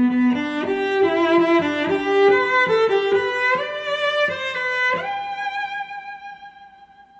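Background music: a bowed-string melody with notes changing every half second or so, settling about five seconds in on one long held note that fades out.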